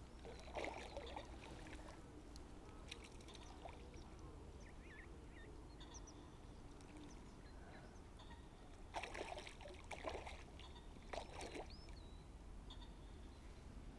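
Faint lapping and splashing of reservoir water, with a few short, slightly louder splashy sounds about nine to eleven seconds in and some faint high chirps.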